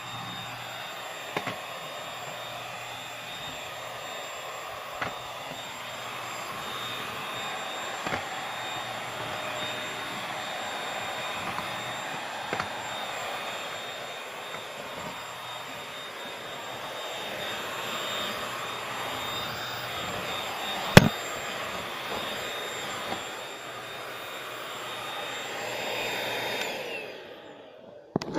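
Bissell 3-in-1 stick vacuum running steadily with a high motor whine while it sweeps up shredded paper, with a few sharp clicks and one loud knock about two-thirds of the way in. Near the end the motor is switched off and its whine falls away as it spins down.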